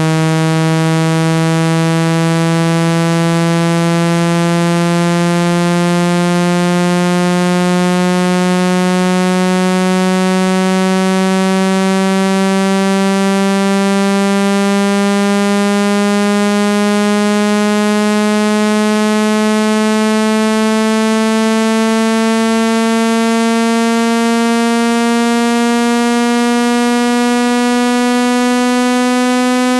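Synthesized speaker-cleaning tone: one harsh, buzzy note rich in overtones, held at a constant level while its pitch slides slowly and steadily upward. It is played loud through a phone speaker to vibrate water and dust out of it.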